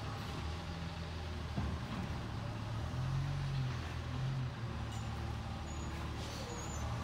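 Garbage truck's diesel engine running steadily. Its pitch rises for about a second and a half, starting about three seconds in.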